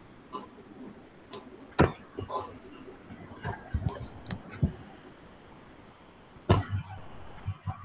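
Irregular knocks and clicks, handling or household noises over a call microphone, with a loud sharp knock about two seconds in and another near the end.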